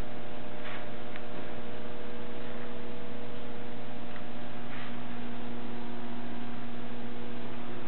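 Steady electrical mains hum, a low, unchanging buzz, with a faint click about a second in.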